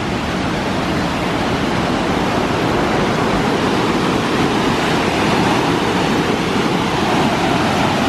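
Rushing roar of Agate Falls, a large waterfall, as a steady wash of white water. It grows a little louder over the first second, then holds even.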